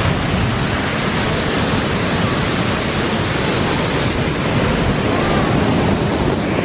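Alamere Falls, a coastal waterfall, pouring down with surf washing in, making a loud, steady rush of water; the hiss at the top end thins out about four seconds in.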